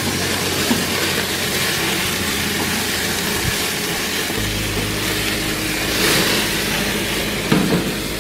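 Hamburger patties flaring up on a grill, the flames and burning fat hissing and sizzling steadily, with a louder surge about six seconds in and a few pops near the end.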